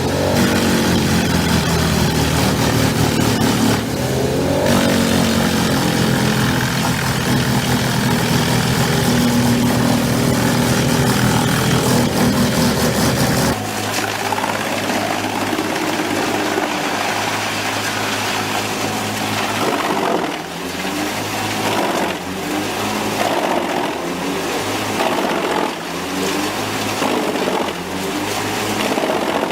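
Heavy machine engines running steadily, with an abrupt change about 13 seconds in to a different, thinner machine sound.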